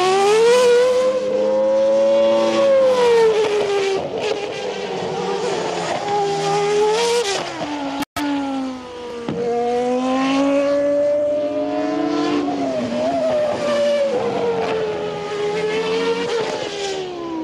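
Renault V10 of a Ligier JS37 Formula One car at racing revs, its pitch repeatedly climbing and dropping as the car accelerates and slows through corners. There is a brief break about eight seconds in.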